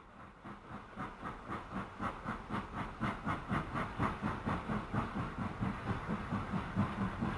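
Model railway train running past: a steady rhythmic beat of several pulses a second that grows louder as the train approaches.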